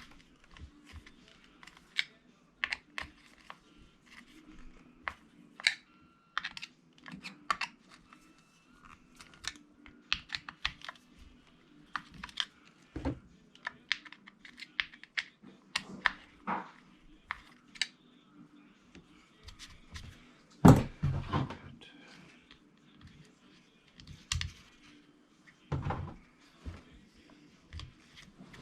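Sporadic light clicks and taps of small plastic and metal RC truck parts and a hand tool being handled, during hand-tightening of screws in the drivetrain. A heavier knock comes about two-thirds of the way through, and a smaller one near the end.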